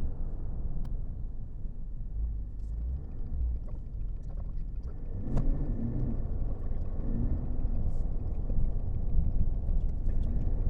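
2021 GMC Sierra AT4's 3.0-litre Duramax inline-six turbodiesel running during a diesel particulate filter regeneration, a steady low rumble heard from inside the cab. The variable-geometry turbo is held open for the regen, which gives the engine this sound at idle.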